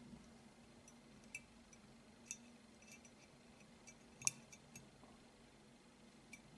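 Faint, sparse metallic clicks and ticks of small steel pistol parts, the extractor and its spring, being handled and pushed into the slide, with one sharper click about four seconds in.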